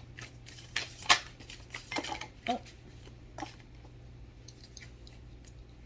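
Deck cards being handled on a table: a few scattered taps and clicks, one sharp one about a second in, over a steady low hum.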